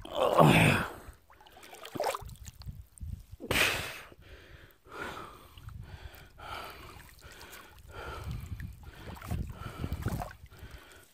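Shallow reservoir water sloshing and splashing around a person wading, in uneven surges, with the loudest splashes near the start and about three and a half seconds in.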